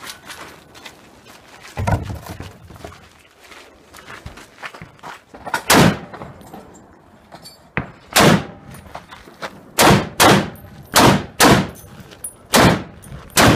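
Gunshots from a competitor's firearm: a duller thump about two seconds in, then about eight loud shots from about six seconds on, coming faster and in quick pairs near the end.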